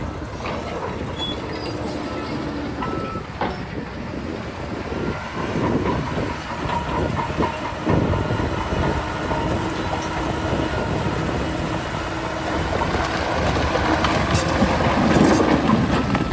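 Heavy earthmoving machinery at work: engines running under a continuous metallic clanking and rattling, with many short knocks throughout.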